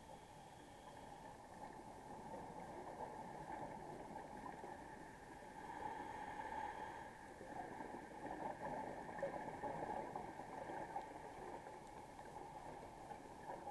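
Underwater noise picked up by a camera in its housing: a steady low rush with louder gurgling swells about six seconds in and again from about eight to eleven seconds, like a scuba diver's exhaled bubbles.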